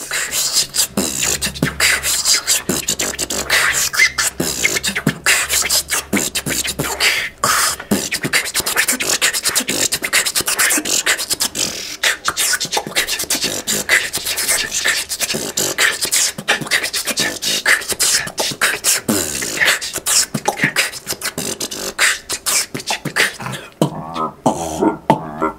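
Beatboxing: a fast, steady stream of mouth-made drum sounds, kicks, snares and clicks, with a singing voice coming in near the end.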